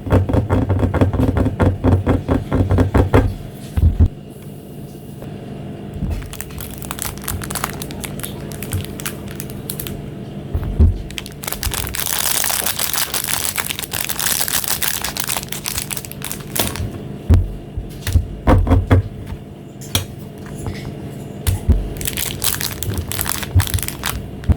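Close-up handling of packaging: plastic wrappers and bags crinkling and crackling, with scattered taps and knocks, and one longer stretch of crinkling of about three seconds around the middle.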